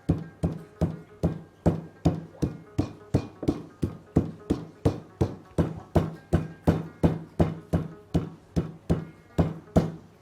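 Meat mallet pounding a butterflied chicken breast flat on a board: a steady run of sharp blows, about three a second, stopping just before the end.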